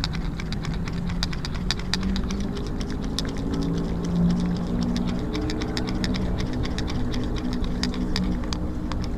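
Fishing line being hauled in by hand onto a spool after a slingshot shot, giving rapid, irregular clicking and ticking several times a second. A low steady hum runs underneath.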